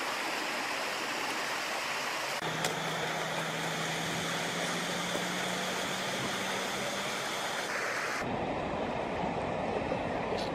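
Steady rushing of a flowing river, its tone shifting abruptly about two and a half and eight seconds in, with a faint low hum through the middle.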